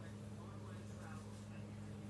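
Steady low electrical-sounding hum, with faint indistinct voices behind it.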